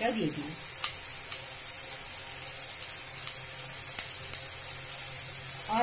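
Sliced onions sizzling as they fall into hot melted butter in a pan, a steady frying hiss. A few sharp clicks come from the steel spoon scraping the onions off the bowl.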